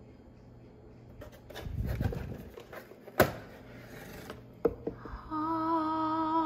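A faint steady hum with soft handling noise, then a sharp click about three seconds in and a smaller click about a second and a half later. Soft background music with long, slightly wavering held notes comes in near the end.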